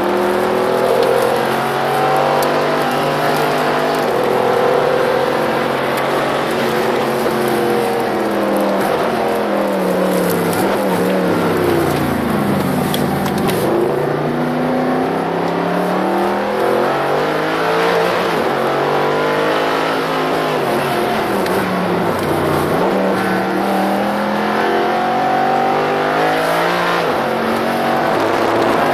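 Mercedes SLS AMG's 6.2-litre V8 with an Akrapovič exhaust, heard from inside the cabin at speed on track. The engine note repeatedly rises under acceleration and falls away as the car brakes for corners, over steady wind and tyre noise.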